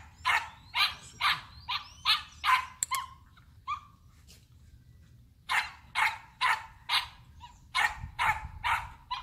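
A dog barking repeatedly, about two barks a second, with a short pause near the middle before the barking starts again.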